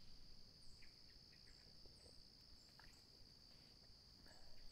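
Near silence, with a faint steady high trill of crickets and a few short high chirps.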